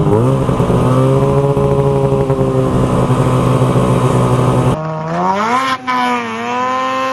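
Snowmobile engine running hard at high revs as the sled skims across slushy open water. About five seconds in there is an abrupt cut to another recording, where the engine's pitch rises and then holds steady.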